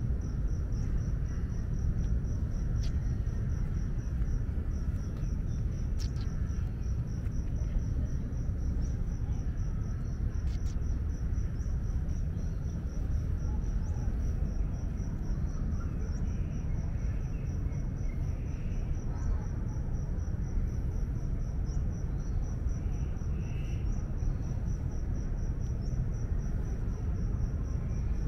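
Insects chirring in a fast, even, high-pitched pulse, over a steady low rumble of outdoor background noise.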